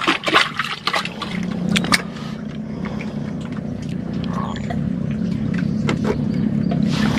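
An engine drones steadily from about a second in and slowly grows louder. In the first two seconds there are a few sharp clicks and knocks of fishing rods being handled in their rack.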